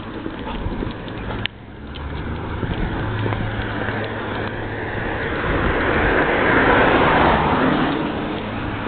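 A road vehicle passing: its noise swells to a peak about seven seconds in and then fades, over a steady low hum.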